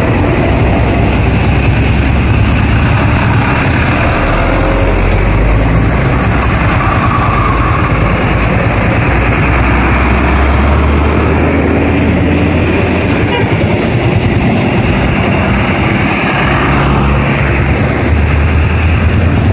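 Heavy road traffic close by: a steady, loud deep engine rumble with tyre and road noise from large vehicles on the highway.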